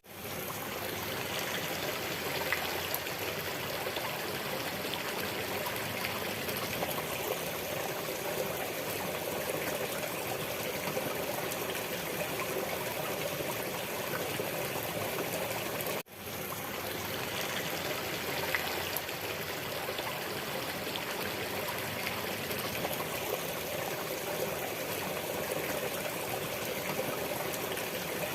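A stream of running water trickling steadily. The sound cuts out briefly about halfway through and fades back in, where the recording loops.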